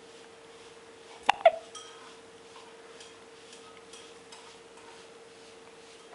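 A one-month-old baby hiccups once, about a second in: a sharp click with a short squeaky catch of the voice. A faint steady hum runs underneath.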